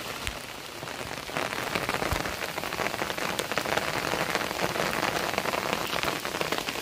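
Heavy rain falling, a dense hiss of drop impacts that grows louder about a second and a half in.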